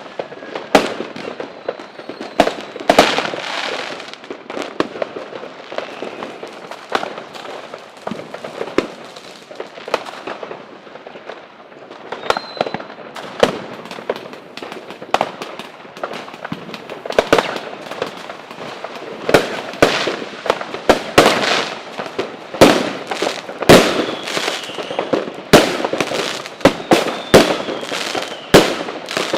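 Fireworks exploding: repeated sharp bangs at uneven intervals with crackling between them, coming thicker in the second half, with a few faint whistling tones.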